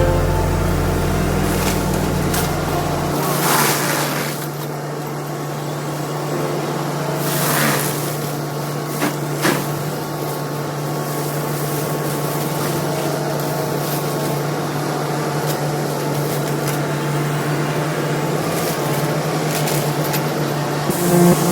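Yanmar mini excavator running steadily with its FEMAC T9 hydraulic mulcher head spinning, a constant drone with a few short bursts of noise during the first ten seconds or so as the head chews into undergrowth.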